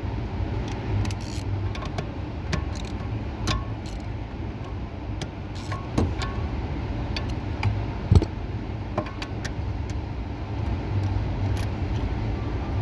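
Hand tools clinking and tapping against metal parts of a steering column as fasteners are loosened, a string of separate small clicks with one louder knock about eight seconds in, over a steady low hum.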